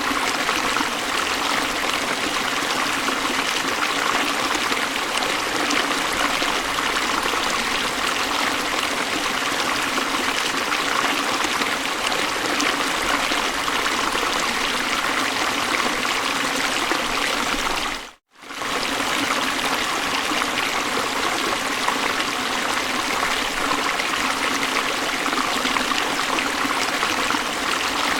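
Steady rushing of flowing river water at a falls, an even wash of noise, cut off by a brief break of silence about eighteen seconds in before it resumes unchanged.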